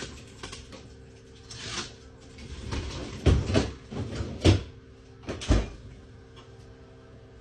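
Kitchen handling sounds: several sharp knocks and bangs, like cupboard doors shutting and things being set down, the loudest bunched together about three to six seconds in, over a steady low hum.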